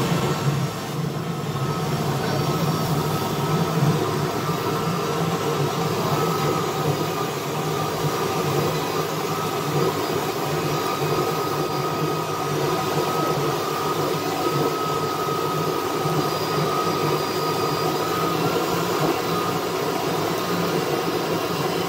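A river cruise boat's engine running steadily under way, a constant drone with a steady hum, heard from aboard the boat.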